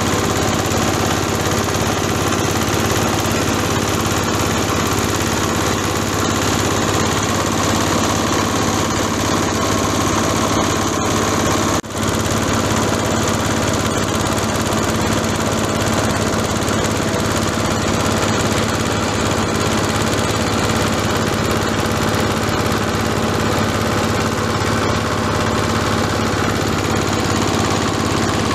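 Small engine driving an oil palm frond chopper machine, running steadily with a constant hum and clatter, broken by a momentary dropout about twelve seconds in.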